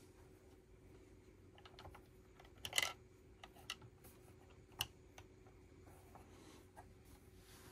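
Lego bricks clicking as they are handled and pressed together: scattered small plastic clicks, the loudest a short rattle of clicks about three seconds in.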